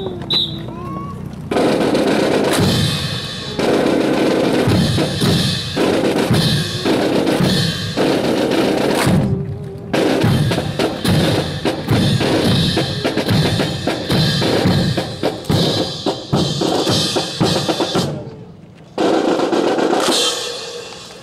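Rhythmic drumming with snare and bass drum, a steady run of loud beats that breaks off briefly about nine seconds in and again, for about a second, near the end.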